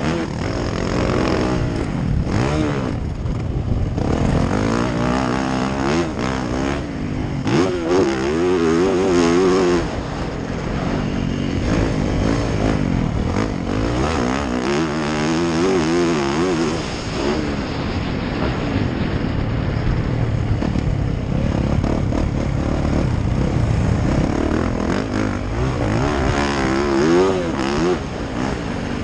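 Motocross dirt bike engine heard from the rider's helmet, revving up and down repeatedly as it is ridden hard around the track, with rough wind noise over it.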